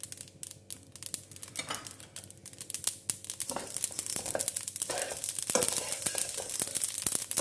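Flaxseeds being dry-roasted in a stainless steel kadhai and stirred with a metal slotted spatula: a rustling, scraping patter of seeds against the pan, growing busier and louder from about three and a half seconds in.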